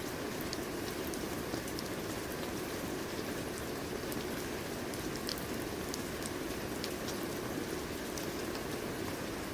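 Steady rain falling on a surface: an even hiss with the patter of scattered individual drops.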